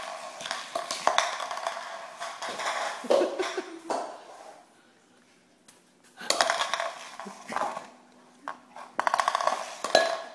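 Plastic cup clattering and rattling on a tile floor as a small dog carries, drops and knocks it about with its mouth, in three bursts of rattling with quiet gaps between.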